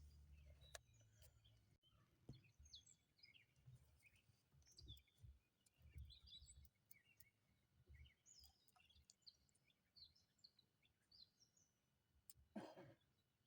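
Near silence with faint birdsong: scattered short chirps and whistles. A low hum stops abruptly about two seconds in.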